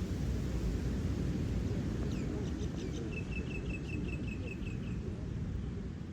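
Steady low rumble of ocean surf and wind. About two seconds in, a bird calls a quick run of short, repeated high notes lasting about three seconds.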